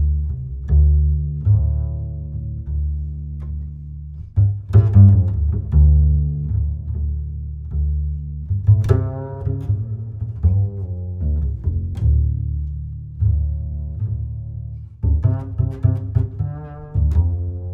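Background music with a deep bass line, its notes starting sharply one after another.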